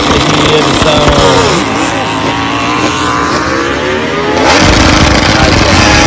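MotoGP four-cylinder race motorcycle engines being revved hard, the pitch rising and falling again and again with each throttle blip, with a louder surge about four and a half seconds in.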